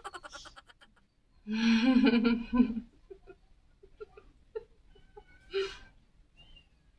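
A woman's laughter trailing off in quick pulses, then her voice held for about a second and a half in a wordless sound, followed by faint clicks and a short breathy laugh near the end.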